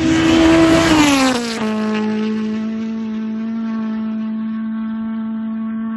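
Race car passing at speed on a gravel road, its engine held at high revs: the pitch drops sharply about a second in as it goes by, then a steady lower engine note as it pulls away.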